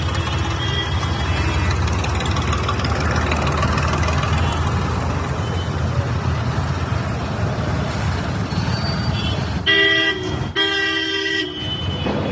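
Street traffic running steadily, with a vehicle horn honking two long blasts near the end.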